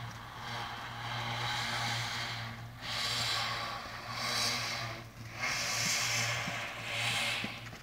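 Horse breathing noisily, a hissing breath about every second to second and a half, over a steady low hum.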